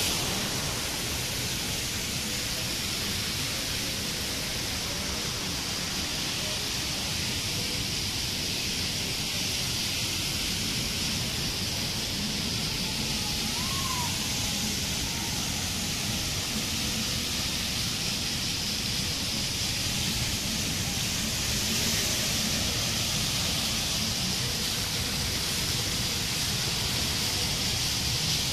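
Steady rushing hiss of water jets and fountain spray falling onto a pool, with no change in level. A single short chirp about halfway through.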